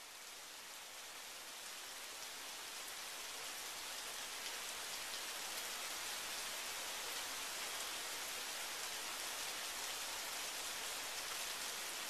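Steady rain falling on pavement and shrubs, a dense hiss speckled with fine drop hits. It grows louder over the first few seconds, then holds steady.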